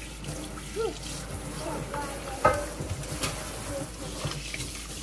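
Water spraying from a kitchen faucet's pull-down sprayer onto a baby goat's wet coat in a stainless steel sink. A brief cry is heard about two and a half seconds in, with shorter pitched sounds near the start.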